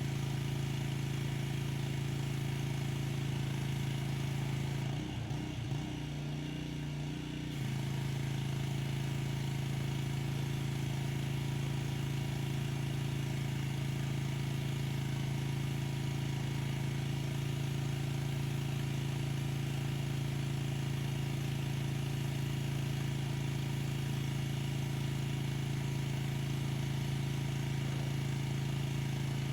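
Pressure washer running steadily with a constant engine hum and spray hiss. About five seconds in, the sound drops and wavers for a couple of seconds, then settles back to the same steady run.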